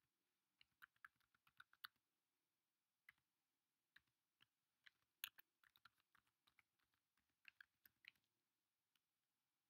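Faint keystrokes on a computer keyboard, typed in short quick runs with pauses between.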